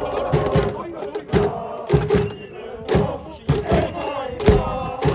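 Cheering section of a high-school baseball crowd chanting and shouting in unison, with a drum beating time in sharp thumps every half second or so.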